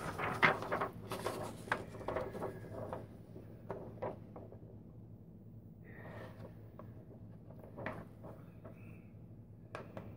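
Scattered light knocks and clicks of gloved hands handling things at a painting table, thick in the first few seconds and thinning out after.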